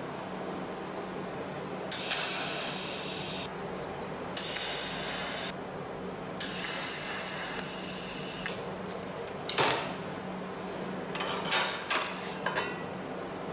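TIG welding arc on stainless steel: three short welds of one to two seconds each, each a hiss that starts and stops sharply. Near the end come a few light metallic clicks and knocks.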